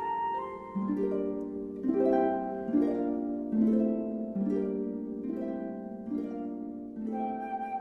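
Background music: harp-like plucked notes in a slow, even pattern, about one chord a second, with a higher held melody line coming in near the end.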